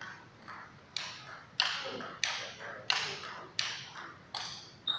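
Table tennis ball knocking back and forth in a fast rally: sharp paddle hits about every two-thirds of a second, with fainter knocks of the ball bouncing on the table between them.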